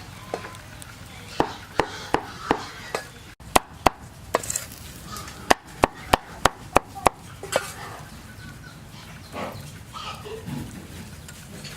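Knife chopping food on a cutting board: sharp strikes in quick runs of about three a second, with short pauses, stopping about eight seconds in. Chickens cluck faintly near the end.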